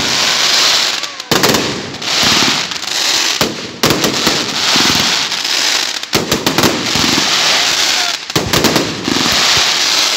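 Ruggieri aerial fireworks display: four shells burst with sharp reports, roughly every two seconds, each followed by about two seconds of dense crackling from crackling stars.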